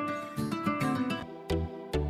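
Background music: plucked guitar-like notes, joined about a second in by a steady beat with deep bass thumps.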